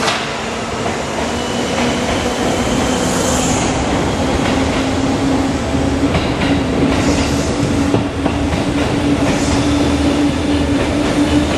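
Seibu 4000 series electric train pulling out and gathering speed. A steady hum rises slowly in pitch over the rumble of the passing cars, and the wheels click over rail joints now and then.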